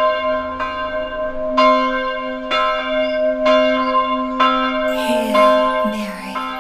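A church bell tolling about once a second. Each stroke sets off the same ringing overtones, and they carry on under the next stroke. About five seconds in, a lower tone and a brief rushing noise join in.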